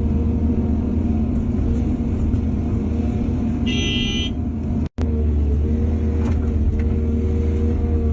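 Heavy diesel engines of an excavator and dump truck running steadily in a low drone. A brief high tone sounds about four seconds in, and the sound cuts out for an instant about a second later.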